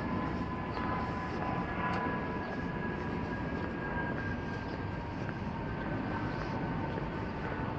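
Distant engine noise: a steady low rumble with a faint high whine that slowly falls in pitch.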